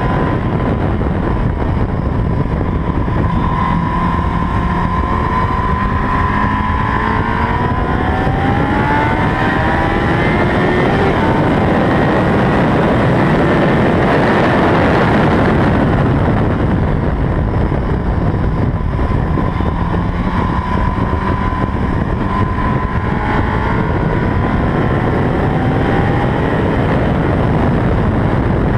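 Yamaha R1 sport bike's inline-four engine heard from on board under hard acceleration. Its pitch climbs and drops back at each gear change, several times over. Wind rushing over the microphone swells to a loud roar around the middle at top speed.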